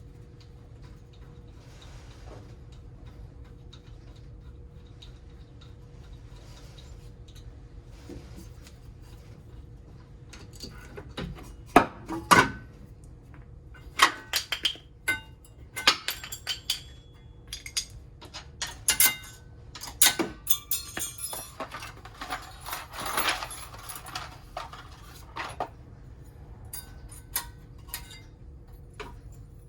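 Sharp metal clinks and clanks of brake caliper and brake pad hardware being handled, coming in irregular bunches from about a third of the way in, over a low steady hum.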